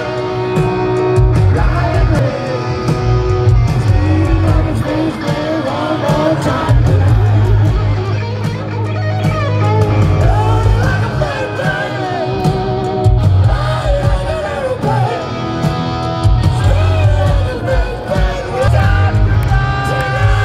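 Hard rock band playing live over a stadium PA, heard from within the crowd: electric guitar with bending, wavering notes and singing over driving bass and drums.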